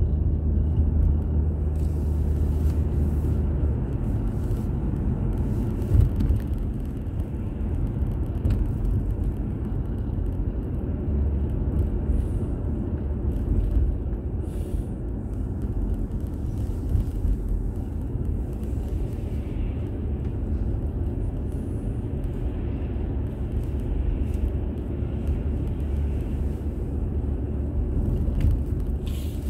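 Car driving on a road, heard from inside the cabin through a dashboard camera: a steady low rumble of engine and tyre noise, with a brief bump about six seconds in.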